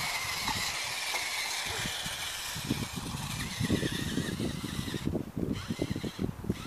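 Small electric motor of an HB-P1801 1:18 RC rock crawler whining, its pitch shifting with the throttle and cutting out briefly twice near the end, over crunching and rustling from the tyres on gravelly soil.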